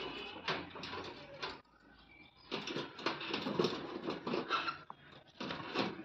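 Pet budgerigars chattering and chirping in irregular scratchy bursts, with a quieter gap about two seconds in.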